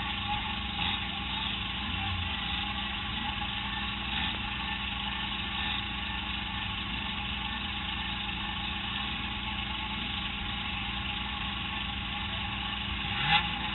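Rodeo stock car's engine idling steadily, heard from inside the car. A short knock near the end.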